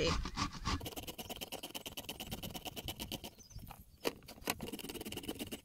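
Zucchini being rubbed quickly back and forth over a plastic mandoline's julienne blade: a fast, even rasping of about seven strokes a second. It pauses briefly a little after three seconds in, two sharp knocks follow, then the rasping resumes.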